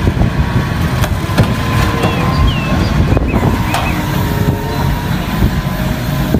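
Large forklift's engine running steadily as the machine drives into a shipping container on a trailer, with a few sharp knocks.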